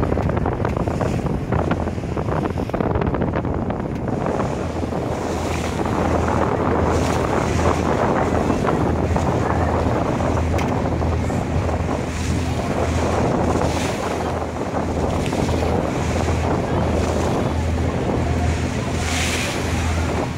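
Passenger ferry under way: the engine's low, evenly pulsing hum beneath the rush of water along the hull, with wind buffeting the microphone in gusts.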